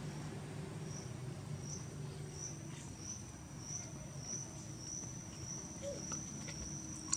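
An insect calling outdoors: a high-pitched chirp repeated about every two-thirds of a second from about a second in, the chirps running together into a steady high trill near the end, over a low steady background hum.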